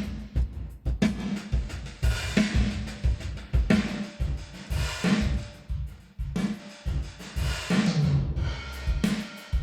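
Drum loop of kick, snare and cymbal hits played through a reverb plugin with drive added, each hit trailing off in a reverb tail.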